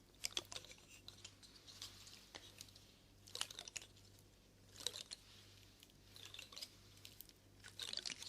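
Close-miked ASMR crackles and crunches, faint, coming in short clusters of sharp clicks about every one and a half seconds.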